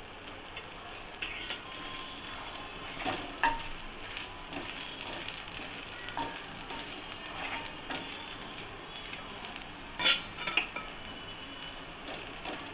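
Dosa batter sizzling on a hot griddle, with scattered clinks and scrapes of a metal utensil against the pan; the loudest are a few sharp knocks about three and ten seconds in.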